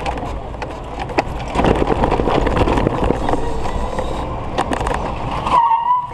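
Golf cart driving over pavement: tyres rolling with a steady rumble, the body rattling and knocking, and a thin steady whine underneath. Near the end a short wavering high note rises over it.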